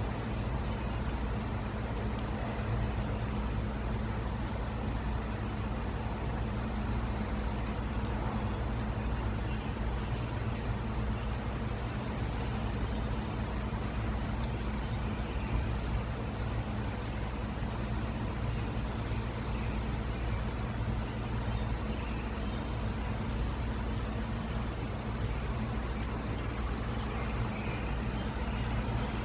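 Steady low engine hum, unchanging throughout.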